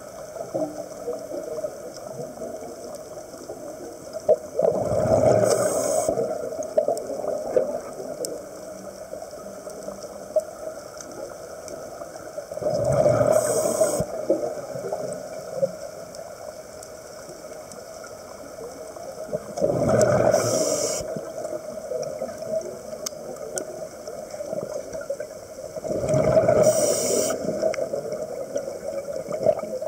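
Scuba diver breathing through a regulator underwater: four rushes of exhaled bubbles about seven seconds apart, with a quieter steady underwater rush between them.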